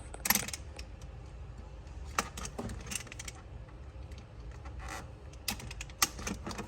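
Scattered light clicks and rattles of small plastic parts being handled while a steering wheel's wiring-harness connectors are worked loose by their release tabs, with the sharpest click just after the start.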